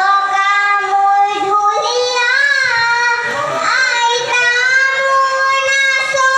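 A high voice singing a Husori Bihu melody in long held notes, with bends and wavering about two and four seconds in, then one note held steady to the end.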